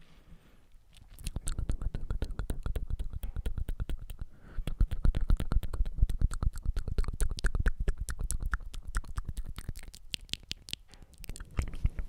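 ASMR mouth sounds very close to the microphone: a rapid, dense run of wet tongue and lip clicks and smacks, pausing briefly in the first second and again about four seconds in and near the end.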